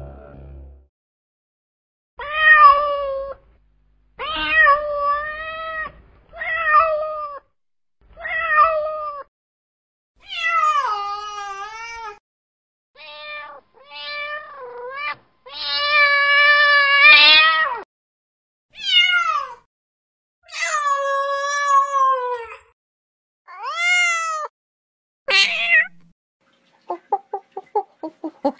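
Domestic cat meowing over and over: about a dozen drawn-out meows, each about a second long, several rising and falling in pitch, with one longer, wavering meow near the middle. Just before the end comes a quick run of short, clipped sounds.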